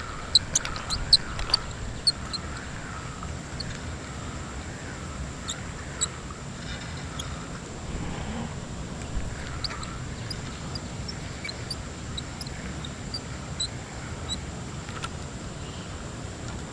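Outdoor river ambience: steady rushing of spillway water with scattered sharp bird chirps, bunched in the first couple of seconds and again past the middle.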